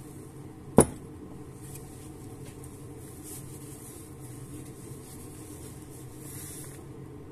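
A single sharp knock as a piston with its connecting rod is set down on a workbench, followed by a steady low background hum.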